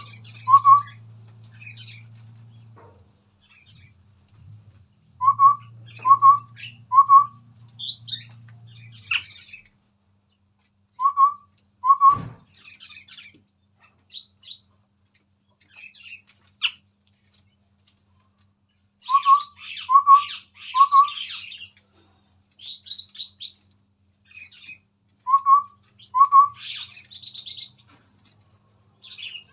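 Chestnut-rumped babblers singing: short hollow whistled notes in groups of two or three, repeated every few seconds, mixed with higher chirps and chattering. A low hum runs under the first nine seconds or so, and there is one thump about twelve seconds in.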